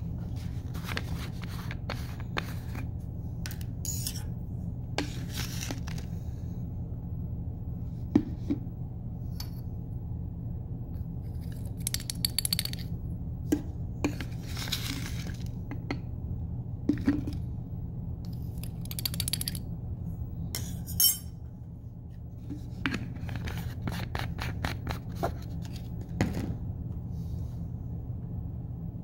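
Lab containers being handled: a metal spatula scraping inside a plastic bottle of solid potassium chlorate, with scattered clicks and small glass clinks, over a steady low hum.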